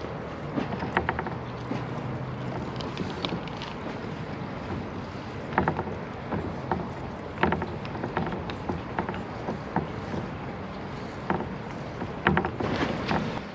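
Water sealer being brushed onto wooden boards: irregular brush scrapes and light knocks of handling the wood, over a steady background hiss.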